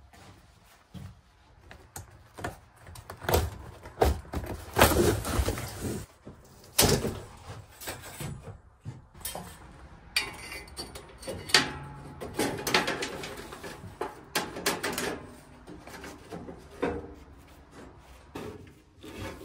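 Steel bandsaw blade being handled and fitted onto the band wheels of a portable sawmill: irregular metallic clanks, rattles and scrapes.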